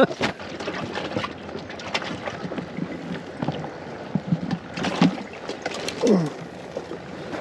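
Water sloshing and splashing around a kayak hull, with many small clicks and knocks and wind on the microphone.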